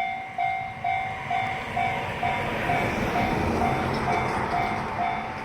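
Railway level-crossing warning bell ringing its 'kan-kan' ding about twice a second, steady and even. A broad rushing noise swells under it through the middle, with the bell going on throughout.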